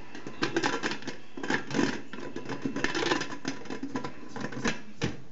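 Irregular clicks, knocks and clatter of cookware being handled, thickest in the middle seconds, over a steady low hiss.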